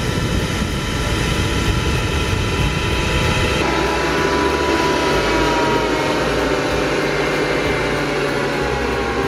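Electric motor spinning the fans of a cardboard model jet engine: a steady whine over a jet-like rush of air. From about four seconds in, the whine's pitch slowly falls as the motor's supply voltage is turned down.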